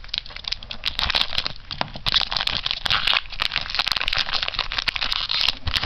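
Foil wrapper of a trading-card booster pack crinkling and crackling in the hands as it is opened, with many sharp crackles, easing off near the end.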